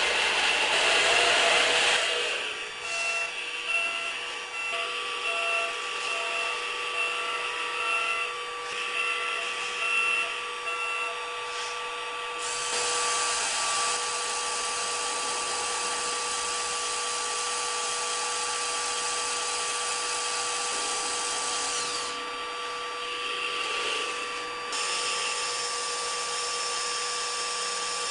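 Small electric motors and gearboxes of a 1/16-scale Bruder Caterpillar RC excavator whirring with a steady whine, a pulsing tone in the first part, and a louder, hissier whir from about 13 s to 22 s as it works.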